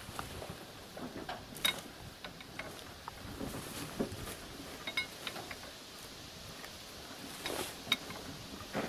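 Scattered metallic clinks and knocks of hand work on a vehicle's front end, among its hoses, linkages and chain. A few of the clinks ring briefly, the sharpest about two seconds in and near the end.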